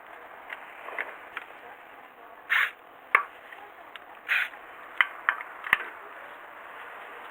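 Tools and parts being handled: scattered sharp clicks and knocks, with two short bursts of noise about two and a half seconds in and again near four and a half seconds.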